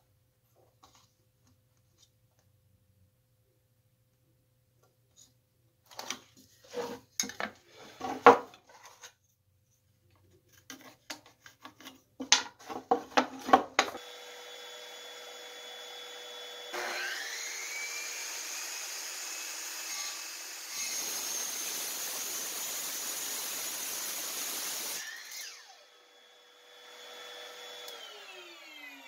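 Sharp knocks and clatter of wood and tools being handled, the loudest near eight seconds in. From about fourteen seconds in a power miter saw and its dust vacuum run: a rising whine as the blade spins up, a cut through wood of about four seconds, then a falling pitch near the end as the motor winds down.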